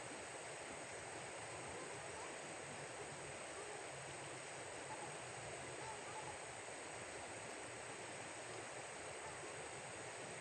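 Steady rushing of a shallow river flowing over riffles.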